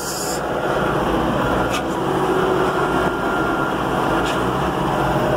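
Tractor engine running steadily while driving, with a couple of faint clicks.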